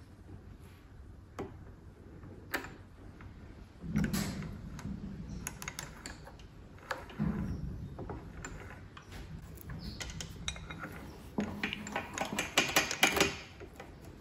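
Steel roller chain being fed by hand onto the sprockets of a Scott Bonnar Supercut Model 17 reel mower's drive, its links clinking and rattling in short bursts, with a quick run of clicks near the end.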